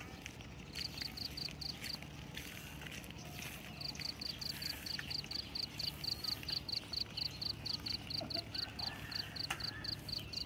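A small animal calling a high, pulsing chirp about three times a second. After a short run and a pause it keeps going steadily from about four seconds in.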